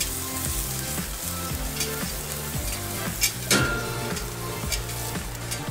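Meatballs sizzling on a hot charcoal kamado grill grate as they are picked up and moved with metal tongs, with a sharp clink of the tongs about three and a half seconds in. Background music with a steady beat plays underneath.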